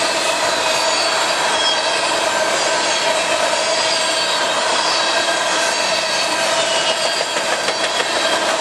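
Empty coal cars rolling past on the rails: a steady rush of wheel and rail noise with several high squealing tones held over it from the wheels.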